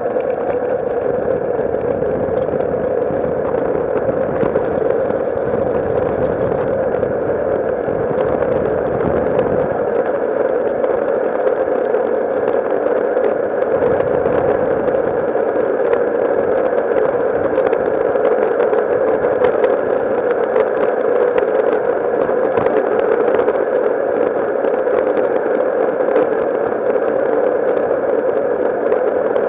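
Wheels of a land-sailing kart built on a Peter Lynn buggy, rolling fast over a concrete runway at about 30 to 40 km/h. A steady rolling rumble with frequent small rattles and clicks from the frame.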